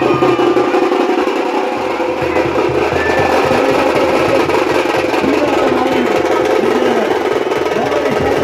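Loud procession drumming: a dense, fast, steady beat of hand-struck drums with no pause.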